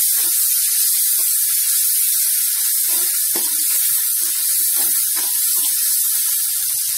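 Ground shallot, garlic and chilli paste frying in hot oil in a wok, a loud steady sizzle, with short scattered scrapes and clicks of the spatula stirring it.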